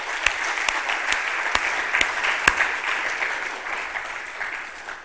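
Congregation applauding in a hall, with single sharp claps standing out about twice a second; the applause fades away near the end.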